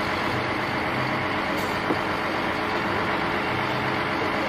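A Mercedes-Benz concrete mixer truck's diesel engine running steadily.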